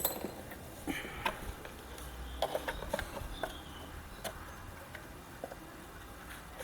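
Light, scattered clicks and taps of hands handling small hardware and speaker wire, with a sharp click right at the start and a quick cluster of taps about halfway through.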